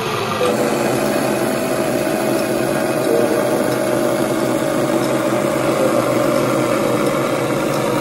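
Energycube ED-CS6 mini chainsaw running at a steady speed: a steady whine over a constant buzz.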